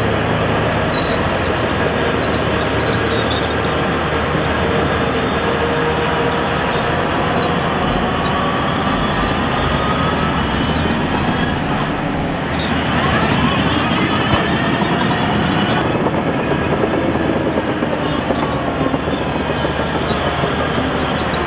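Heavy diesel earthmoving machinery running steadily under load, with gliding squeals rising and falling about midway through.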